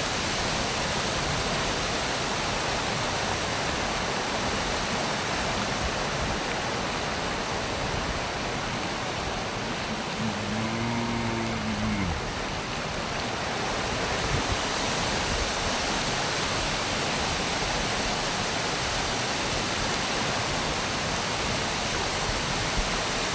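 Waterfall with water crashing down in a steady, even rush.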